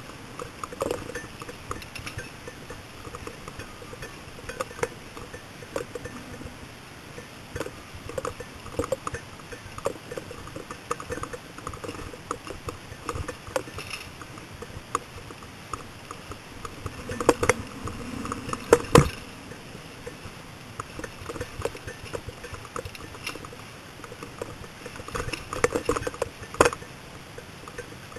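Bicycle rattling and clattering over a rough dirt trail, with irregular clicks and knocks throughout. Heavier jolts come twice: a cluster about two-thirds of the way in and one near the end.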